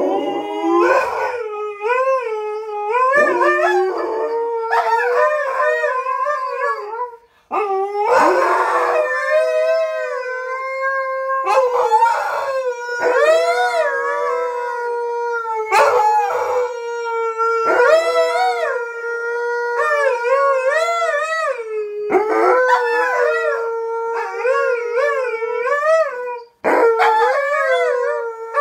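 Two Alaskan malamutes howling together in long, wavering howls, their voices often overlapping, with brief breaks about seven seconds in and near the end.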